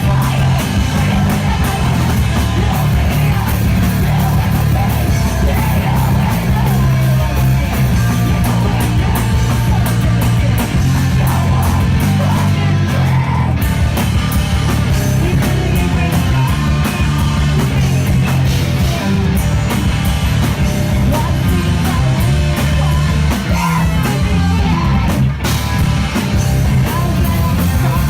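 Live rock band playing loud and heavy: distorted electric guitars, bass and drums, with shouted vocals over them.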